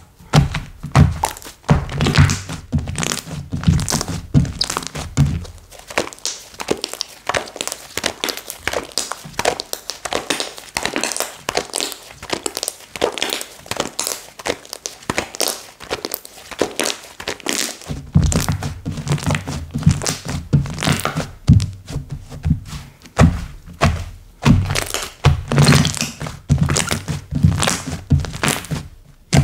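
Slime being squeezed, pressed and stretched by hand: a dense run of sticky clicks and small pops. Soft low thuds underneath come during the first five seconds or so and again from about eighteen seconds on.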